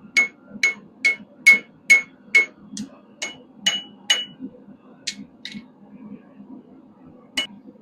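Hammer blows on a hot quarter-inch square steel bar over the edge of an anvil, bending its end up: a steady run of about ten ringing metallic strikes, roughly two a second, then a few lighter, spaced-out taps after about four seconds.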